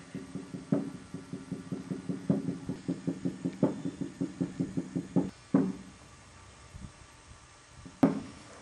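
Low plucked string notes in a slow picking pattern of about three to four notes a second, each ringing briefly. The pattern stops about six seconds in, and one more accented plucked note sounds near the end.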